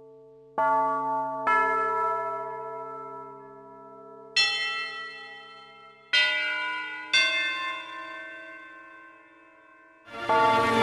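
Bells struck five times in uneven groups, each stroke left to ring and slowly fade; near the end an orchestra comes in, louder than the bells.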